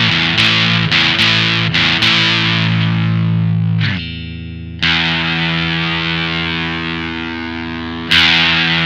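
Electric guitar, a Squier Classic Vibe 50s Telecaster, played through a Maestro Fuzz Tone FZ-M pedal set for low-gain fuzz. It opens with a few quick picked notes and chords, then two long, sustained fuzzed chords, struck about five and eight seconds in.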